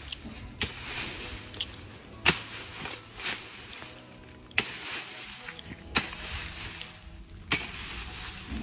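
A digging tool chopping into soil, about five strikes roughly a second and a half apart, each followed by a brief scraping hiss of loose earth.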